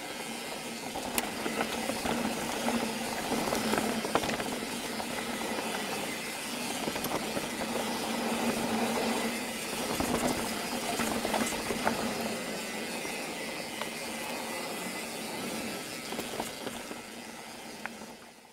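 Mountain bike riding along a dirt singletrack trail: a steady rush of tyre and wind noise with frequent small knocks and rattles from the bike.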